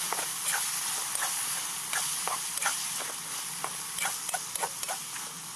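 Meat frying and sizzling in an iron kadai over a wood fire, a steady hiss, with short scrapes of a metal spoon stirring it about three times a second.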